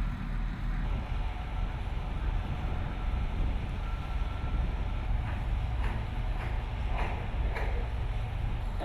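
Heavy construction machinery running with a steady low rumble. From about halfway, a series of sharp knocks, a little under two a second.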